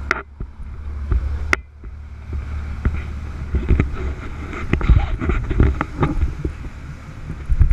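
Wind buffeting the microphone as a low, steady rumble, with scattered knocks and bumps throughout; the loudest come about five seconds in and near the end.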